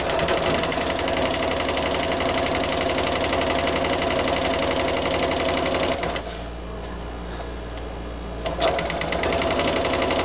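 Electric home sewing machine running a line of straight stitching through layered sling fabric at a steady speed. It stops for a couple of seconds about six seconds in, then starts up again.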